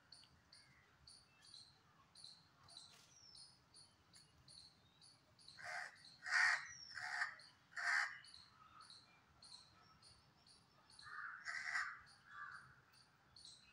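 Crow cawing: four loud caws in quick succession about halfway through, then a few more near the end, over a steady run of short high chirps, about two to three a second.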